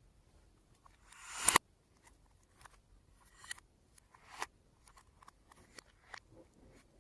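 Slime being handled by hand, giving small sticky clicks and pops, with a swell that ends in one louder snap about one and a half seconds in.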